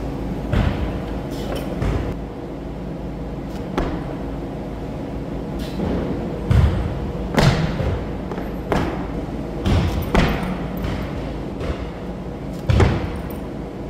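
Barbell and bumper plates thudding and clanking on a rubber lifting platform: about ten separate impacts at irregular gaps, the loudest about six and a half and seven and a half seconds in and near the end, over a steady low hum.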